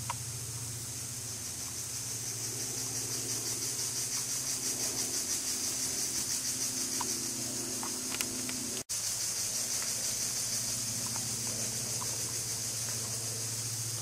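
Steady forest ambience: a high, slightly pulsing insect-like drone and hiss over a low steady hum, with a few faint short chirps. The sound cuts out for an instant about nine seconds in.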